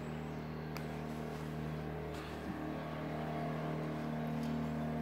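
Speedboat engine running at a steady drone, growing slightly louder in the second half.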